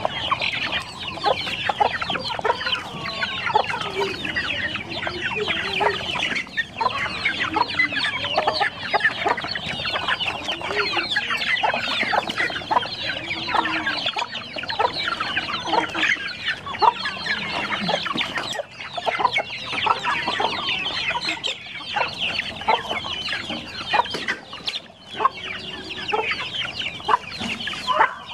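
A flock of hens and half-grown chicks feeding together, with constant high peeping and clucking that keeps up without a break.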